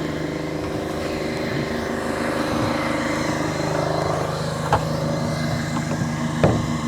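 A small engine running steadily, with two short sharp knocks near the end.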